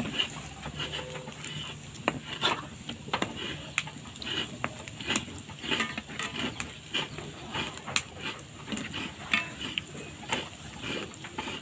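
Pitha cakes deep-frying in hot oil: a steady sizzle with irregular small pops and crackles.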